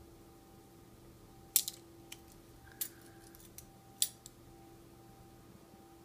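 Steel handcuff being picked open with a thin wire: a handful of sharp metal clicks, the loudest about one and a half and four seconds in, as the cuff is released and its arm swung open.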